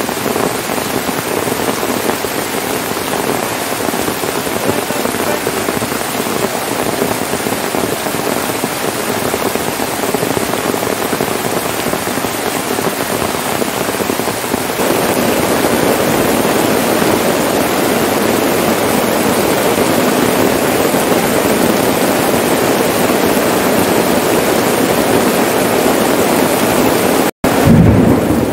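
Heavy rain pouring steadily onto a tarp flysheet and the surrounding forest, growing louder about halfway through. Near the end the sound breaks off for an instant and comes back louder and deeper.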